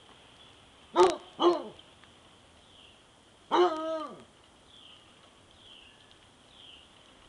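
A dog barking twice in quick succession, then a longer, drawn-out bark that falls in pitch at the end.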